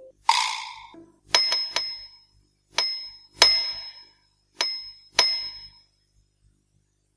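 A short noisy sound, then six bright bell-like dings in uneven pairs, each ringing high and fading quickly.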